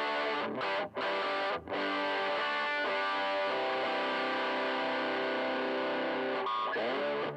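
Electric guitar played through a Joyo crunch distortion pedal into a miked tweed Deluxe 5E3-style valve amp. A few short chopped chords, then one crunchy chord left ringing for about five seconds, and a new chord struck near the end.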